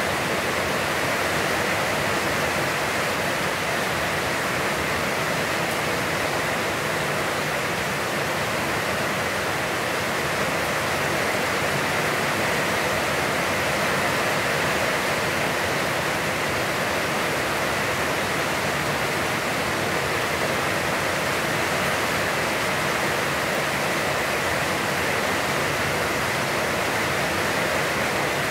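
Heavy, constant rain: a steady, even hiss of falling water.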